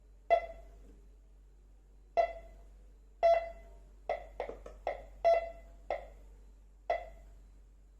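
MD-4030 metal detector sounding about ten short tones as metal passes over its search coil. The tones come irregularly, bunched closer together in the middle.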